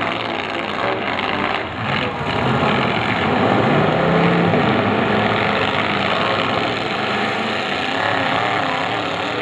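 Engines of several demolition derby cars running and revving hard as they drive around the dirt arena, with a few knocks of car bodies hitting in the first two seconds.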